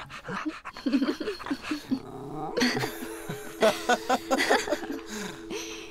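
Animated-film soundtrack: a cartoon pug making short dog vocal sounds, then a man and a woman laughing about halfway through, over music with a held chord that comes in about three seconds in.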